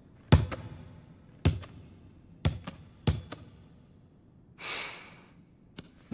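Volleyball struck hard four times in an empty gym, each hit a sharp smack with a quick second knock and a short echo. A brief hiss follows, then a light click near the end.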